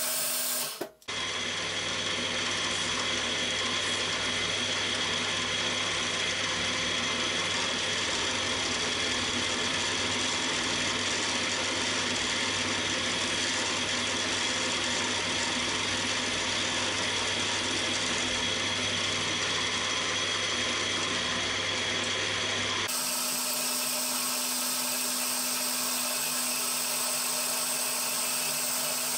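Cormak ZX 7045 mill-drill running steadily as a twist drill bores holes in an aluminium plate, a continuous motor and spindle whine. The sound breaks off about a second in and changes abruptly in tone near the end.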